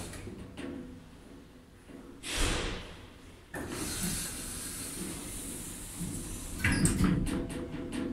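Automatic sliding doors of a 1993 Schindler elevator closing. A whoosh comes about two seconds in, and near the end a clatter of knocks and clicks as the doors come together and shut.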